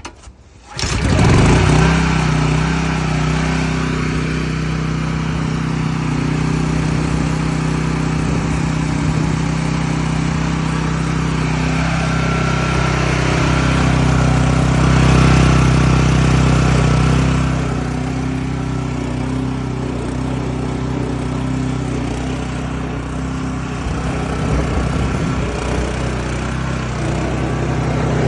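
Small sewer-jetting pressure washer starting up about a second in, then running steadily at a constant pitch.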